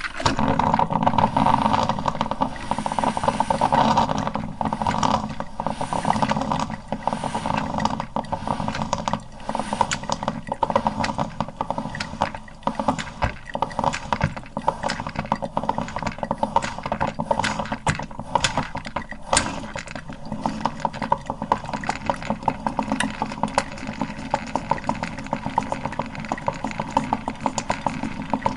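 Coffee maker brewing: dense, irregular sputtering and popping over a steady background.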